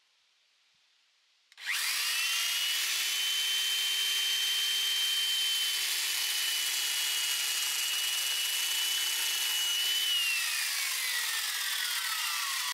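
Corded electric chainsaw switched on about a second and a half in, running at a steady high whine as it cuts through a wooden plank; over the last couple of seconds its pitch falls steadily.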